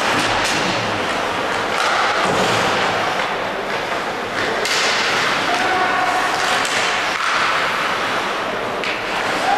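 Ice hockey game play in a rink: thuds and knocks of the puck, sticks and players against the boards, scattered through a steady arena din.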